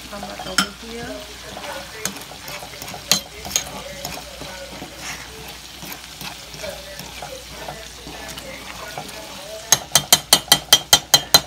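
A spoon stirring a pot of simmering red beans and rice over a steady sizzle, knocking against the pot a few times. Near the end comes a quick even run of about a dozen sharp clicks, roughly seven a second.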